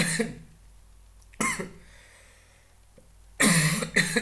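A man coughing in short fits: one about a second and a half in, and a double cough near the end.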